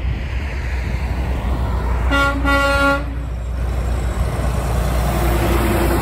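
A Peterbilt 579 semi truck's horn sounds once for about a second, a couple of seconds in. The truck's engine and tyre noise then grow louder as it draws up close and passes.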